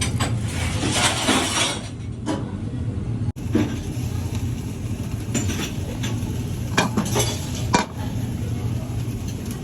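Metal utensils clinking and scraping against a cooking pan in scattered short strokes, over a steady low hum.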